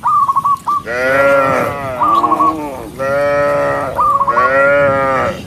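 Cattle mooing: three long, loud moos about a second each with a shorter one between them, pitch bending up and down. Short high whistled chirps come in quick groups at the start and between the moos.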